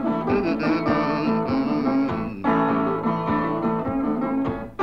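Background music: a guitar playing an instrumental passage between the song's sung lines, with no voice.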